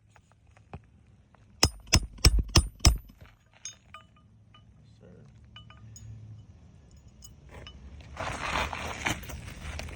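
Hammer driving a roofing nail into a new asphalt shingle: five quick, ringing metal strikes about three a second, then a few faint light taps. A louder rushing noise comes in near the end.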